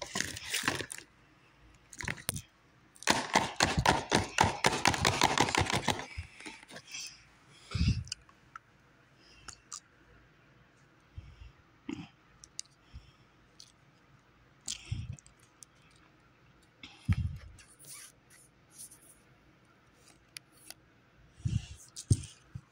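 Handling noise of a toy box and its loose plastic wrapping: about three seconds of dense crinkling crackle a few seconds in, then scattered clicks and a few soft thumps.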